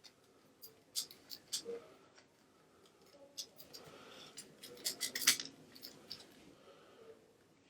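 Sharp clicks and taps of the plastic casing and parts of a PS4 DualShock 4 controller being handled and pried apart by hand. They come in a few quick clusters, about a second in and again around five seconds in, the loudest near the five-second mark.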